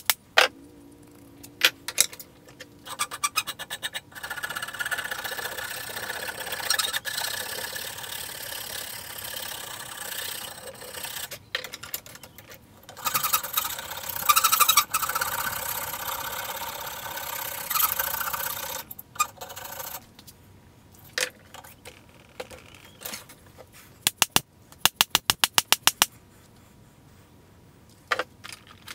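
Hand rasp scraping along a wooden tomahawk handle clamped in a steel bench vise, a long steady rasping with brief pauses. Near the end, a quick run of sharp taps.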